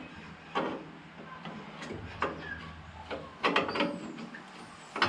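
Irregular light knocks and metallic clinks, about half a dozen, from hand-work with tools and parts against a Land Cruiser's steel body around the door hinge.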